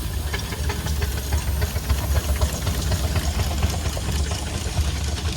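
Steam traction engines running, with irregular clicking and knocking, under a heavy low rumble of wind on the microphone.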